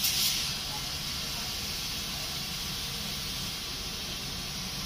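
Compressed air hissing steadily from a diesel train's brake system, starting suddenly and holding level, over the low rumble of the idling diesel engine.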